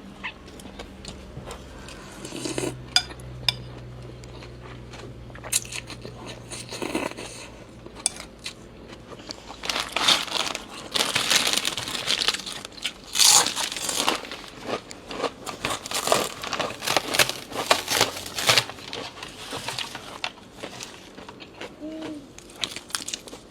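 Close-up eating noises: a spoon and chopsticks clink and scrape against a bowl of noodle soup, with a busier run of eating sounds about halfway through.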